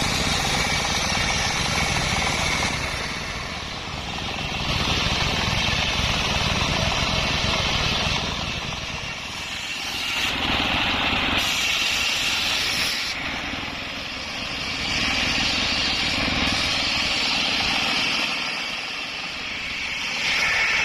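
Belt-driven table circular saw ripping sengon (albizia) logs, its blade noise swelling as each cut goes through and easing between cuts, about every five seconds, five passes in all. Under it a single-cylinder stationary diesel engine drives the saw and runs steadily throughout.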